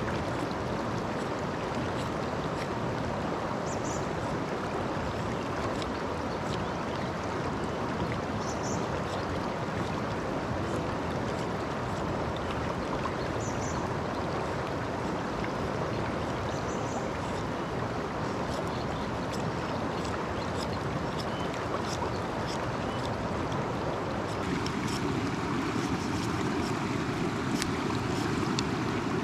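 Shallow mountain stream rushing steadily over rocks, with faint short high chirps every few seconds. About 24 seconds in the water sound changes and becomes closer and fuller.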